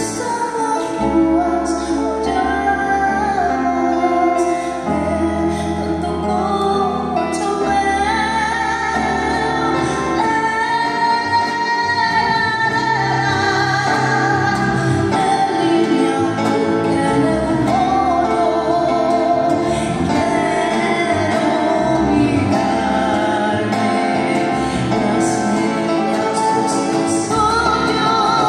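A woman singing into a microphone through PA speakers, holding notes with vibrato, accompanied by an electronic keyboard playing sustained chords and bass notes.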